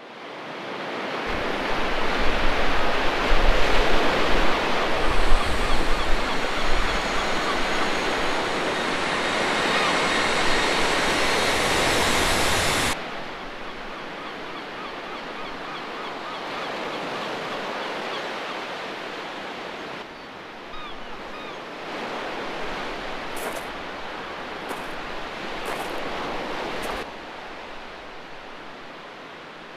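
Outdoor rushing of wind and water, loud with low wind rumble on the microphone, then cutting off suddenly about thirteen seconds in to a quieter, steady rush. A few short high-pitched chirps sound near the end.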